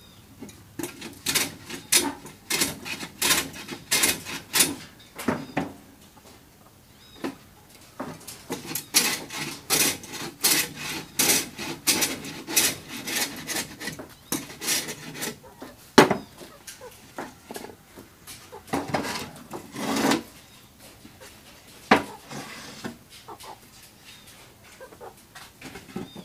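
Hand plane shaving the sawn edges of a plywood seat board to take off splinters: quick rasping strokes at about two a second in two runs, broken by a short pause. Later come a few sharp single knocks of wood being handled.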